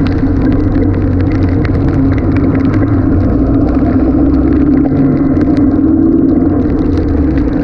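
Open-top Renault car driving in heavy rain: a steady engine drone mixed with wind and road noise, its note rising slightly about six seconds in. Raindrops hit nearby, making many quick sharp ticks.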